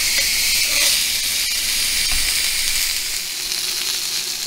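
Frozen Wagyu beef patty sizzling on a dry, smoking-hot cast-iron grill pan as it starts to give up its fat, a dense steady hiss that eases slightly later on.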